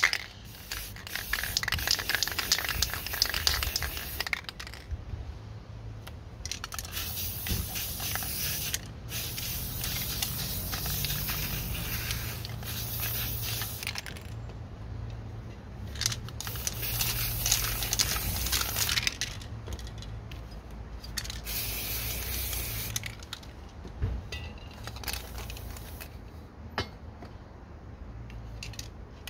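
Aerosol spray-paint cans hissing onto paper in a series of bursts of a few seconds each, with short pauses between, after a sharp click right at the start.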